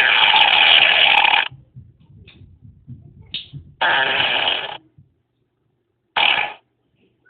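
Three fart sounds: a long one ending about a second and a half in, a second lasting about a second starting near four seconds in, and a short one near the end.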